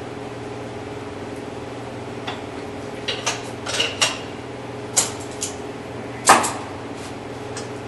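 Metal clanks and knocks as a coil spring is worked onto a new strut held in a wall-mounted spring compressor. The knocks start about two seconds in, and the loudest comes near the end, over a steady hum.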